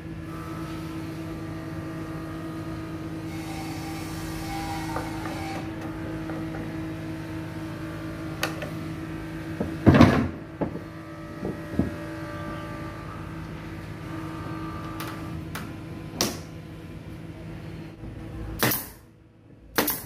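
Wooden chair parts knocking on a workbench as they are handled and fitted, the loudest knock about halfway through, over a steady machine hum. Near the end a pneumatic nail gun fires twice, about a second apart.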